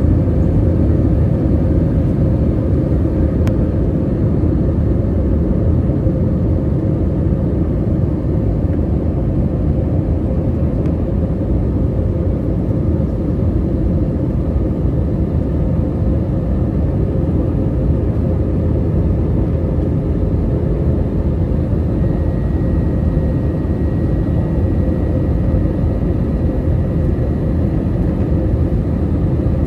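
Steady cabin rumble inside an Airbus A320-200 airliner during descent: engine and airflow noise heard from a window seat. It stays low and even throughout, with a faint high whine coming in about two-thirds of the way through.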